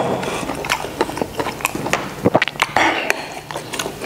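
Close-miked chewing of tender braised beef ribs with rice: irregular wet mouth smacks and clicks.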